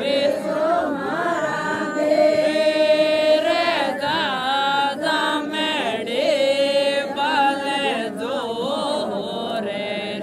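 Group of voices, women and a young man, singing a Rajasthani folk mayra wedding song together without instruments, in long wavering held notes.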